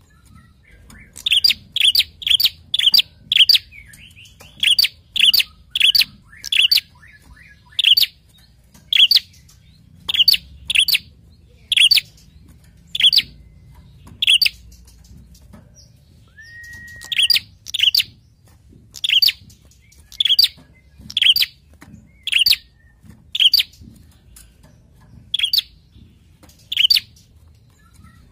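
A caged prenjak calling: a long series of short, sharp chirps, some single and some in quick runs of three or four. There is one brief steady whistle a little past the middle.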